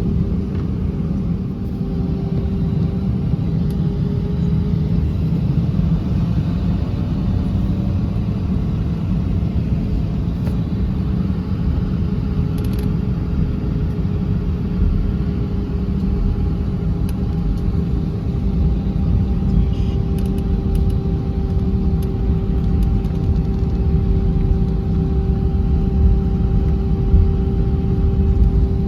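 Airbus A319 cabin noise while taxiing: a steady low rumble from the engines at idle and the rolling airframe, with a constant mid-pitched hum and a fainter higher tone above it.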